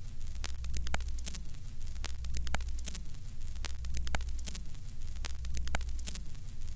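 Old-film sound effect under a countdown leader: a steady low hum with static hiss and irregular crackling pops, as of worn film.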